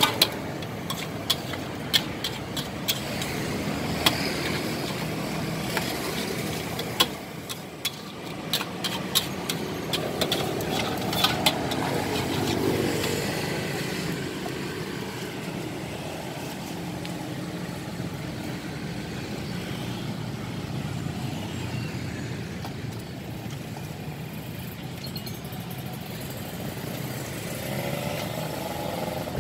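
Metal spatula clanging and scraping against a wok as noodles are stir-fried, quick clusters of strikes through the first dozen seconds and then stopping. Under it runs a steady hum of street traffic with motorcycles passing.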